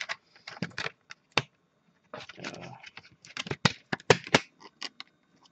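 Clear plastic clamshell case of a computer memory stick being handled and pried open: a run of sharp plastic clicks and snaps, with a brief rustle about two and a half seconds in.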